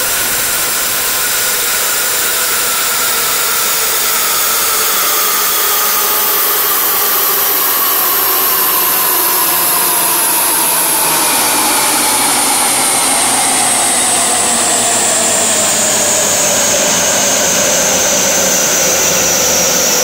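Large band sawmill running as it cuts a big mango wood log: a steady, loud mechanical noise with a whine that slowly falls in pitch over the whole stretch.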